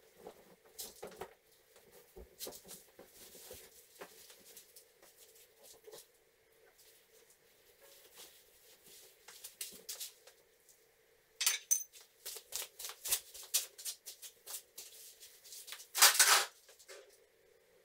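Handling noises in a room under renovation: scattered light taps at first, then, about two-thirds of the way through, a quick run of sharp clicks and knocks. Near the end comes a louder clatter as tools are picked up from among the metal drywall profiles on the floor.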